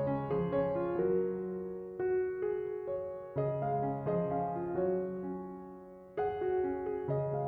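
Soft background piano music: slow chords struck and left to ring and fade, with a new chord every second or two.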